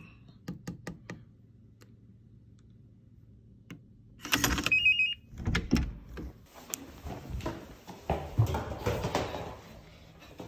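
Digital door lock on a front door being worked by hand: a few quick clicks, then a loud clack with a short electronic beep about four seconds in as it unlocks. The door then opens, followed by shuffling and footsteps.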